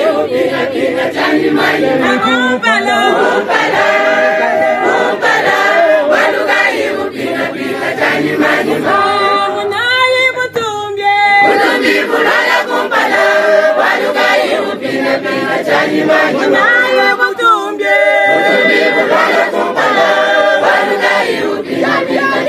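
A crowd of women and girls singing together, with a high, wavering voice rising above the group about ten seconds in.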